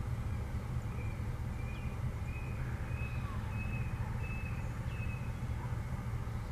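Diesel engine of GAIA locomotive No. 5281 running with a steady low rumble, while a bird gives a row of about seven short, high chirps from about a second in.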